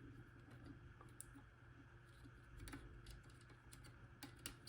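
Faint, irregular small clicks of a pick turning the discs of an old Abloy Profile disc-detainer padlock one disc at a time, with the sharpest clicks in the last two seconds.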